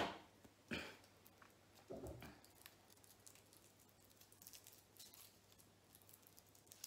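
Faint crinkling and rustling of the foil wrapper being peeled off a small Kinder chocolate egg, with a couple of soft taps in the first two seconds.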